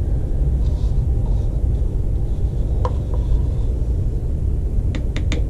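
Steady low background rumble, with a light tap about three seconds in and three quick taps near the end from a glaze brush knocking against a small plastic container.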